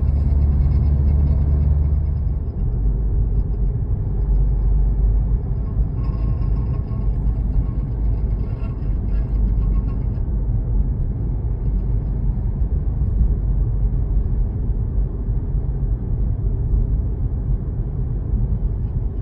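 A 2024 Mercedes-AMG C43 being driven: steady low road and drivetrain rumble, with a fainter, higher scraping sound joining between about six and ten seconds in. The scrape comes and goes, and its source has not been found.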